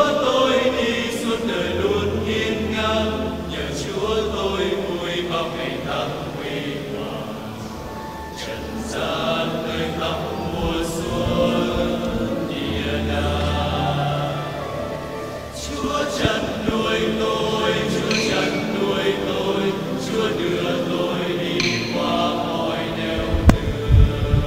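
Choir singing a slow sacred chant, with a few low thumps near the end.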